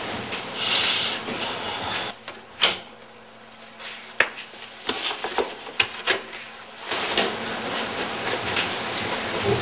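Someone rummaging through a dresser and hanging clothes: rustling, with a burst of rustling about a second in, then several sharp knocks and clicks of things being moved and bumped between about 2.5 and 6 s, and denser rustling near the end.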